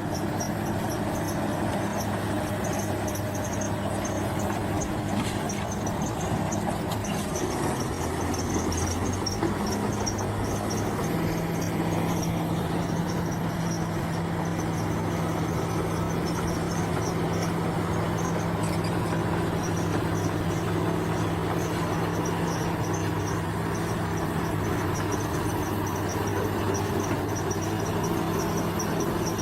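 Heavy diesel earthmoving machine, likely a bulldozer, running steadily, its engine note shifting about eleven seconds in, with insects chirping in a fast steady pulse high above it.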